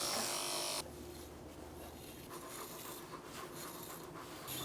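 Electric pet clippers running, then switching off about a second in. Faint, repeated rasping strokes follow as a dematting comb is pulled through the dog's thick coat.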